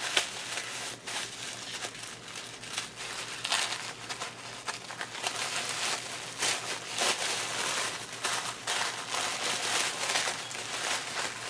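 Gift wrapping crinkling and rustling as a wrapped item is opened by hand, in irregular crackles throughout.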